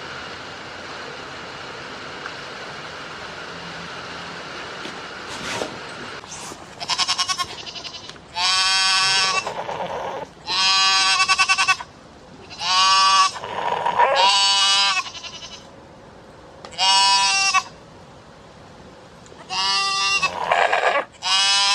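Goat bleating repeatedly: about eight loud, wavering calls of around a second each, starting about six seconds in. Before them there is only a steady hiss.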